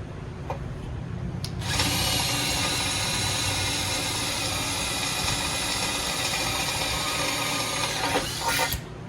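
Power drill running steadily as it bores a mounting hole in a bumper for a flush-mount LED pod, starting about two seconds in and stopping near the end.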